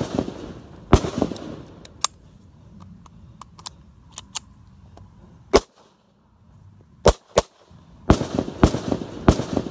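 Blank-gun pistol shots: sharp single reports at the start and about one and two seconds in, a few more scattered through the middle, then a quick run of shots from about eight seconds in. Lighter clicks fall between the shots.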